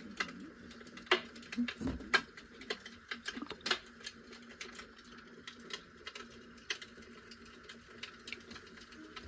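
Plastic dye squeeze bottle being squeezed and pressed against folded fabric by a gloved hand, making irregular small clicks and crackles.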